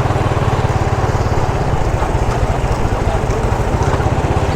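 Motorcycle engine running steadily with a rapid even putter, with road and wind noise over it.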